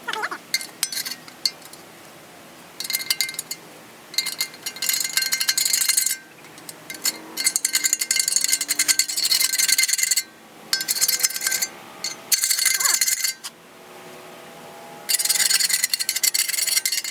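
Rebar being hammered down through a steel shovel socket to drive out the old wooden handle stub. Rapid ringing metal-on-metal strikes come in bursts of one to three seconds with short pauses between them.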